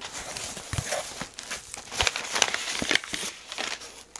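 Cardboard shipping box being opened by hand: flaps scraping and folding back, with packing paper and bubble wrap crinkling in irregular rustles.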